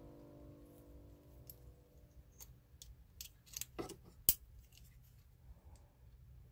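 Faint metallic clicks and ticks from a handmade silver link bracelet as its riveted hinges flex and its clasp is closed, ending in one sharp click a little after four seconds in. Background music fades out at the start.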